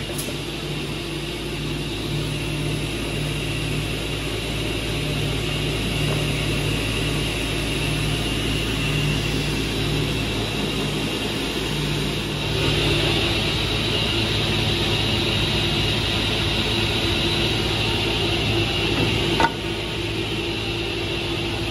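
Woodworking machinery running steadily, a hum with a steady high whine. It grows louder and fuller about halfway through, and there is a single sharp click near the end.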